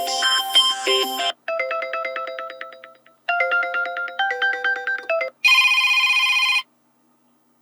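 Built-in ringtones of a Vodafone Smart Platinum 7 phone playing one after another, each cut off abruptly when the next begins. First comes a busy electronic melody, then plucked, chiming melodic phrases of rapid repeated notes. Near the end a buzzy ring lasts about a second and stops suddenly.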